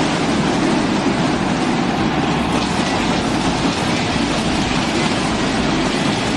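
A large stadium crowd cheering loudly and without a break.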